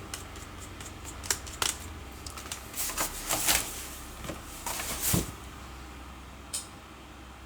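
Screwdriver and small screws clicking and scraping as the screws holding the internal battery of an Asus K551L laptop are taken out: irregular light clicks with two longer scraping stretches around the middle and a last single click near the end.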